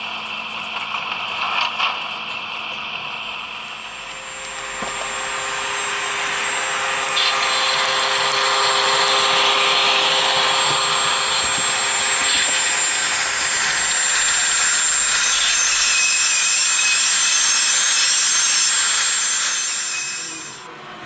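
Model railway train running on the layout: a steady mechanical rolling and motor noise with a faint steady whine, building up a few seconds in and fading out near the end.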